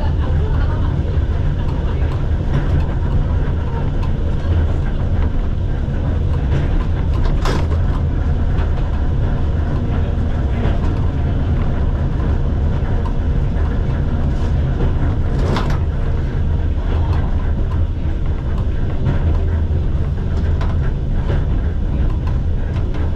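Vintage museum tram running along the track with a steady low rumble, broken by two sharp knocks, one about a third of the way through and one about two-thirds of the way through.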